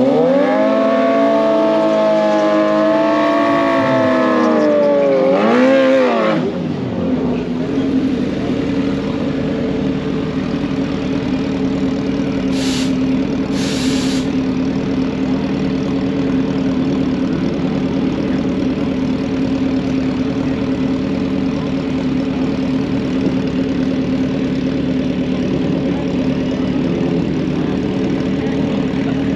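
Motorcycle engine revved high and held for about six seconds, then dropping away. After that, motorcycle engines idle steadily at the drag strip's starting line, with two short hisses about halfway through.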